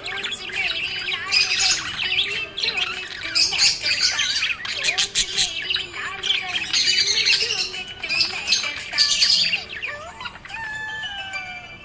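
Budgerigars chirping and warbling in a rapid, dense, overlapping chatter of short high chirps, the happy chatter of contented budgies. It thins out near the end.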